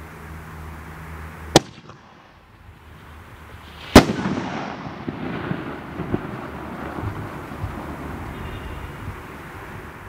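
Aerial consumer firework: a sharp launch thump about a second and a half in, then a louder bang about four seconds in as it bursts, followed by scattered crackling and hiss that slowly fades.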